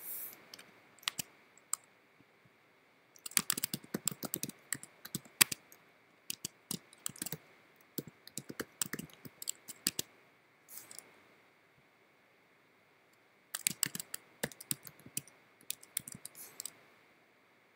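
Typing on a computer keyboard: quick runs of key clicks, each a word or two, separated by short pauses, with a longer pause near the middle.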